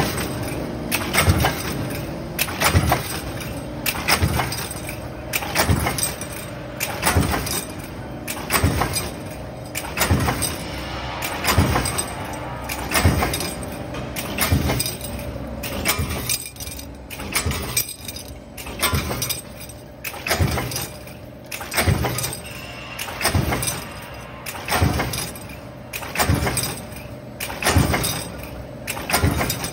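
Stamping press running a cabinet hinge arm transfer die, striking in a steady rhythm about once every second and a half, each stroke a sharp metallic impact followed by a brief clatter of metal parts.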